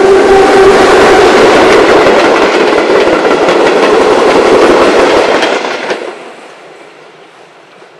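ÖGEG class 1245 electric locomotive and its old wooden-framed coaches passing close by. A steady whine from the locomotive fades within the first second, then the wheels clatter over the rail joints. The loud running noise falls away quickly about six seconds in as the last coach goes by.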